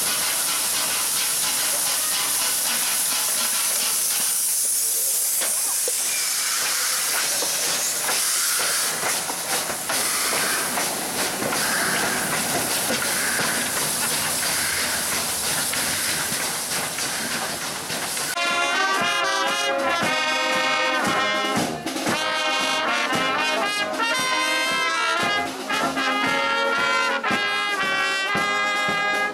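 Steady loud steam hissing from a PKP Ol49-class steam locomotive. Past the middle it gives way to a brass band of trumpets and tubas playing a tune.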